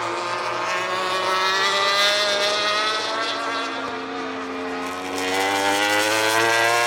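Racing motorcycle engines running at high revs on the circuit, a sustained engine note that sags slightly in pitch about halfway through and climbs again toward the end.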